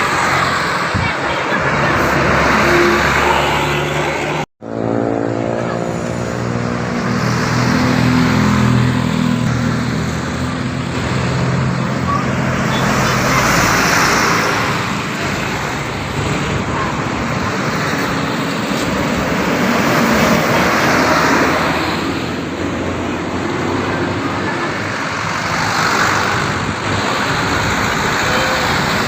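Road traffic passing on a highway, several vehicles going by one after another in swells of engine and tyre noise. A deeper engine hum passes from about five to eleven seconds in. The sound cuts out sharply for an instant about four and a half seconds in.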